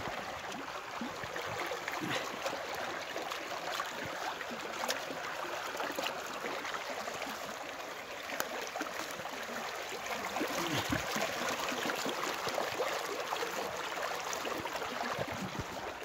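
Shallow, clear stream running over stones: a steady trickling, gurgling rush of water, a little louder about two-thirds of the way through, with a few faint clicks.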